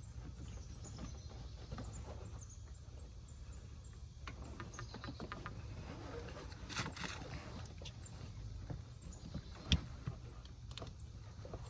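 Scattered small clicks and knocks of hands fitting a new plastic heater core hose connector into place on a Chevy Silverado, over a steady low hum. One sharp click near the end stands out as the loudest.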